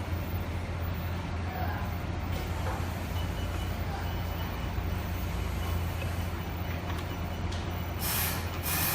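A steady low machine hum, with a short loud hiss near the end.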